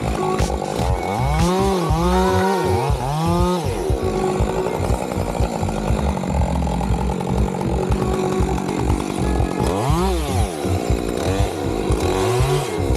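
Chainsaw running, its engine revving up and dropping back several times in two spells, about two seconds in and again near the end.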